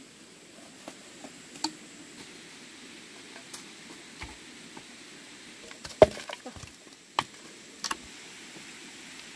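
Irregular wooden knocks and taps as wood is handled. There are light taps in the first half, a cluster of sharper knocks about six seconds in, and two more knocks near the end, over a faint steady hiss.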